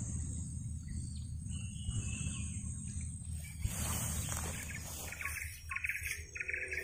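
Swamp ambience: a steady high insect drone under a low rumble, with a few faint clicks, and from about four and a half seconds in a rapid, repeated chirping call.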